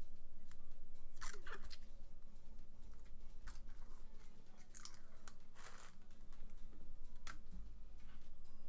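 Protective plastic film being peeled off laser-cut acrylic case pieces in several short crackling pulls, with a few sharp clicks from handling the acrylic.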